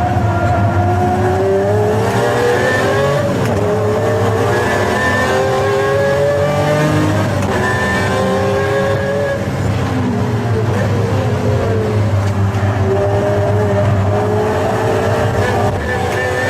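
A V12 supercar engine pulling hard under acceleration, its pitch climbing over several long pulls and dropping back between them as it shifts gear.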